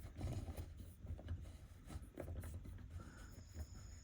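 Faint scratching and small clicks of hands working a replacement headlight switch in the dashboard to center it.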